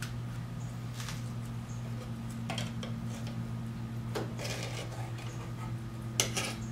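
A knife scraping and clicking against a metal muffin tin as stuck bacon bowls are pried loose: several separate scrapes, with the sharpest click near the end. A steady low hum runs underneath.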